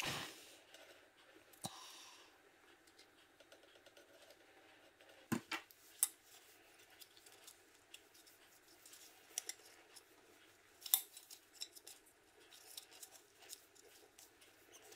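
Faint clicks and taps of a car interior mirror's hard plastic housing and circuit board being handled, with a few sharper snaps about five to six seconds in and around eleven seconds.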